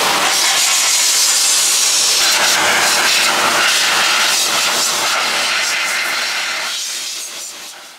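Car-drying air blower blasting a steady rush of air through its hose onto wet paintwork. The sound fades away near the end.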